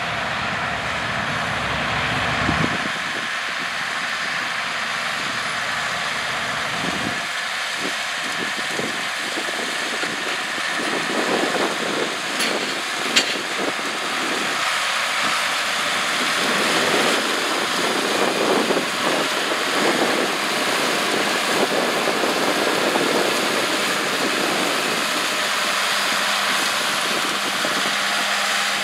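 John Deere row-crop tractor engines running steadily under load as the tractors pull corn planters. The sound shifts abruptly about 3 and 7 seconds in.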